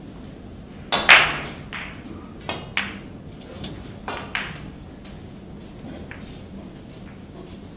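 A pool cue striking the cue ball on a Chinese eight-ball table, then a string of sharp clicks as the balls collide and knock. The loudest click is about a second in; smaller ones follow over the next few seconds.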